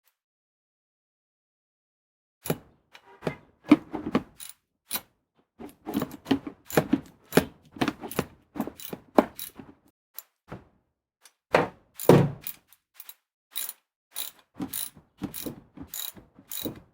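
Irregular clicks and knocks of hand tools and parts being fitted while the wiper arms go back on, starting about two and a half seconds in.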